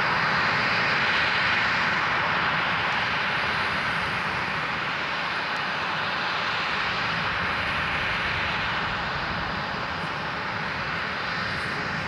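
Boeing 737-800's CFM56-7B turbofans running at taxi power: a steady rushing hiss that eases slightly over the second half.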